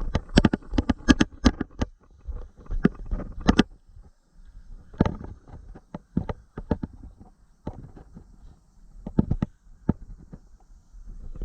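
A run of sharp clacks and knocks, quickly repeated in clusters over the first two seconds, again around three and five seconds in, and in a pair near nine seconds, with quieter stretches between.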